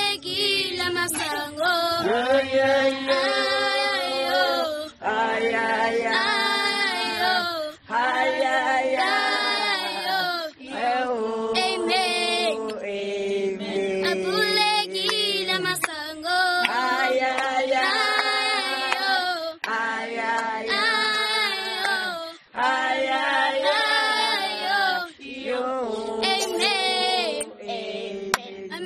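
Voices singing without instruments, in phrases of about two seconds with short breaks between them.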